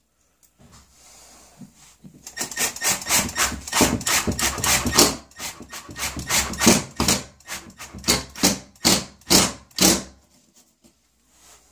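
Impact driver driving a screw into a wooden strip mounted on the wall, running in a quick series of short bursts from about two seconds in to near the end.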